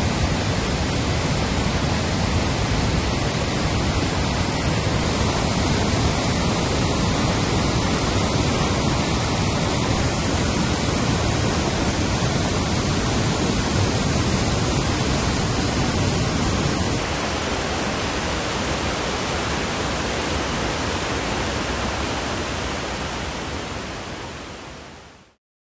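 Steady rushing of a boulder-cascade waterfall, foaming water pouring over rocks at high spring flow. It drops a little in level about two-thirds through and fades out near the end.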